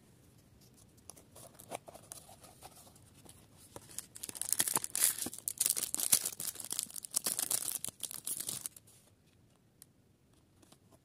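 Clear plastic packaging crinkling and tearing as it is unwrapped by hand: faint rustling at first, then dense loud crackling from about four seconds in, stopping a little before the end.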